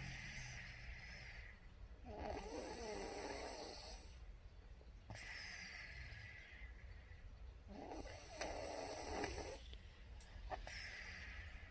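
A sleeper snoring in slow, regular breaths: two rough, rattling snores about five seconds apart, each followed by a hissing breath.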